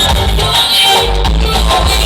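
A song playing, with a steady beat and heavy bass.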